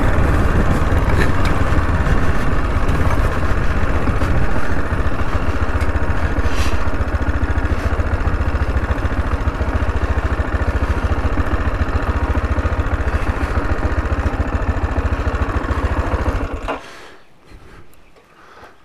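Single-cylinder 600 cc four-stroke engine of a 2017 AJP PR7 adventure motorcycle running at low speed on a dirt track, a steady low throb as the bike slows. The engine stops suddenly near the end.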